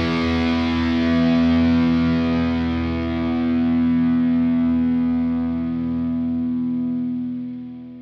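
Background music: a distorted electric guitar chord held and left to ring, fading out near the end.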